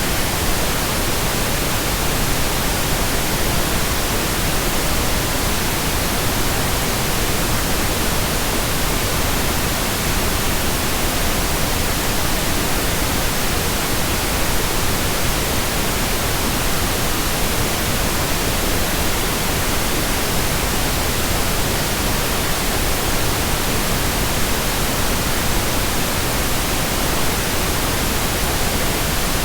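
Steady pink noise: an even hiss that covers the whole range, unchanging throughout.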